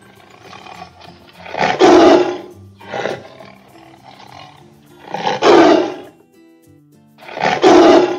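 Tiger roaring: three loud roars a few seconds apart, with quieter growls between them, over soft background music.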